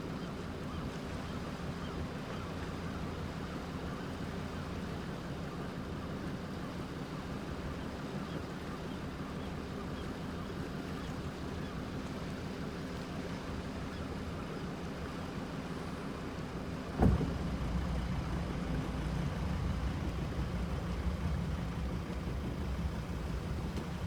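Steady low rumble of a boat's engine running at idle, with one sharp knock about two-thirds of the way through, after which the rumble is a little louder.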